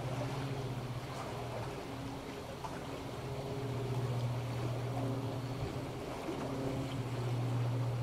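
Sea waves washing on a beach in a steady hiss, with the low drone of an airplane taking off running under it, swelling about halfway through and again near the end.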